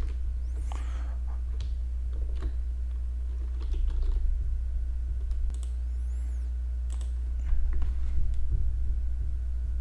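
Scattered keystrokes on a computer keyboard and a few mouse clicks as a short word is typed into a web form, over a steady low electrical hum that is the loudest sound. The clicks come in two small clusters, about four seconds in and near the end.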